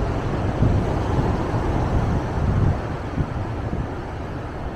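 Wind buffeting the microphone over the steady wash of ocean surf breaking on the beach. The gusts ease about three seconds in.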